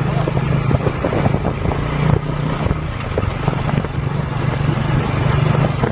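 A vehicle engine running steadily while travelling, with a low, even drone and irregular road and wind noise over it.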